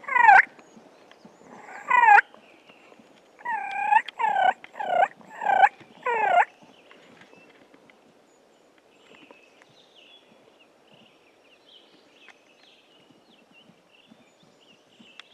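Wild turkey yelps: one yelp, another about two seconds later, then a run of five about half a second apart, each note dropping in pitch. The calling stops about six seconds in.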